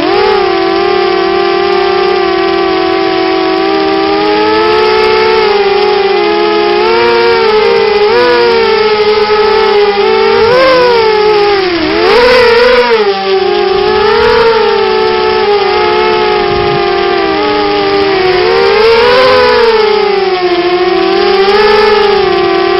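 Coptergeist CGX 250 racing quadcopter's motors and propellers whining, the pitch wavering up and down with the throttle.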